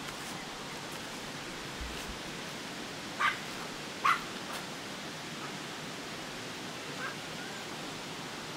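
Two short, sharp barks from a small Pomeranian dog, a little under a second apart, with a faint third yip later, over a steady rushing background noise.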